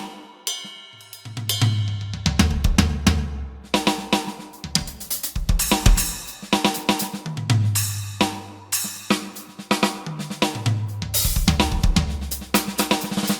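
EFNOTE 5 electronic drum kit being played: a fast, busy groove of bass drum, snare, hi-hat and cymbal strokes.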